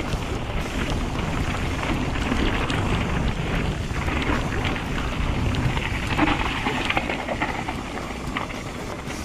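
Wind buffeting the camera microphone and an enduro mountain bike's tyres rolling over wet gravel and mud on a fast descent, with scattered knocks and clatters from the bike over rough ground. Rain patters throughout.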